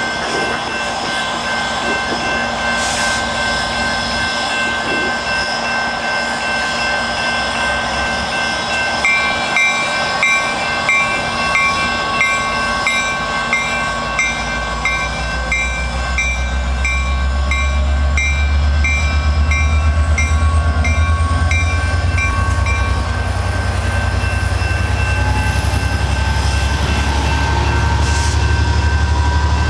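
GO Transit F59PH diesel locomotive (EMD 12-710 two-stroke engine) throttling up about halfway through to pull its train away, a deep engine rumble that holds loud, with a whine rising in pitch as the train gathers speed and bilevel coaches roll past near the end. A level-crossing bell rings in quick strokes for a stretch in the middle.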